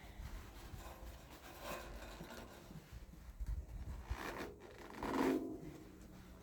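Faint rubbing and scraping in a few short swells, the loudest one near the end.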